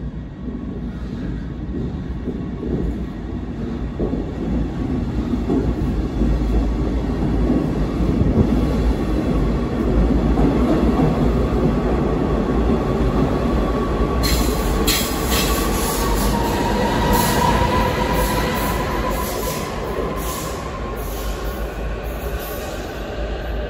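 Double-deck regional train with a class 147 electric locomotive accelerating out of an underground station: a heavy rumble builds as the coaches pass, then a rising electric whine and a run of sharp wheel clicks as it pulls away.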